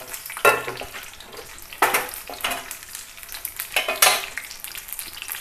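Banana pakoras deep-frying in hot oil in a kadhai on high flame: a steady sizzle, with louder surges about four times.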